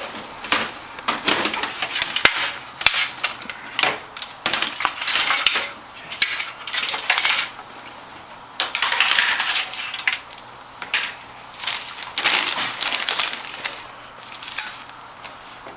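Irregular metallic clinking, rattling and rustling as metal computer parts and small hardware are handled.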